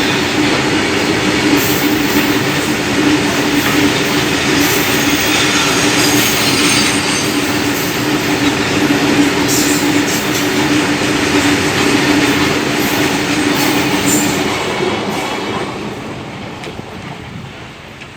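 Coal wagons of a freight train rattling and clanking past on the rails, with a steady low hum that stops about fourteen seconds in. The sound fades over the last few seconds as the train moves away.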